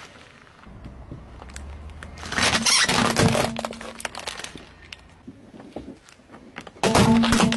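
Car tyre rolling over a rubber squeaky chicken toy: a crunching burst, then the toy's steady squeal for about two seconds. Near the end, hard plastic cups crack and snap under the tyre.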